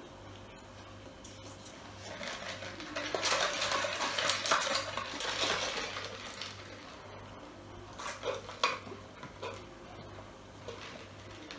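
Rattling and clinking for several seconds as a fast-food paper drink cup is picked up and handled at the table, then a few short sounds as it is sipped through its straw.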